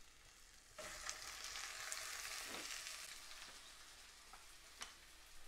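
Stuffed cabbage rolls set into hot olive oil in a frying pan, the oil starting to sizzle suddenly about a second in and going on steadily, easing a little toward the end. A single click near the end.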